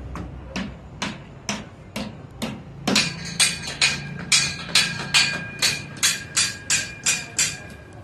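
Hammer blows striking metal, a steady run of strikes about two to three a second, each leaving a short ring. About three seconds in the blows grow louder and come a little faster.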